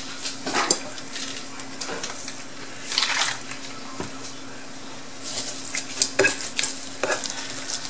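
A gloved hand mixing ground pork in a stainless steel bowl, with quick knocks and scrapes against the metal from about five seconds in. Before that there are only a few light clicks. A steady low hum sits underneath throughout.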